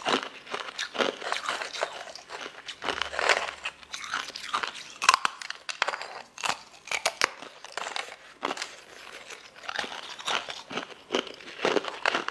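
Sliced lotus root being bitten and chewed, in an irregular run of crisp crunches.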